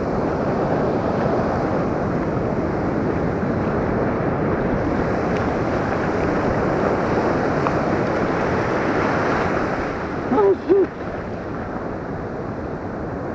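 Shallow surf washing in over sand, with wind buffeting the microphone: a steady rushing noise that eases a little near the end. About ten seconds in, two short pitched calls cut through it.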